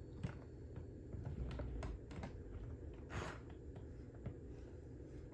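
Faint scattered clicks and rustles of the plastic Mattel D-Rex robot dinosaur being handled, with a short scuffing noise about three seconds in.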